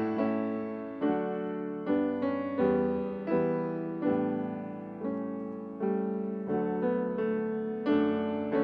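Piano playing slow, gentle chords, one struck a little under once a second, each ringing on and fading before the next.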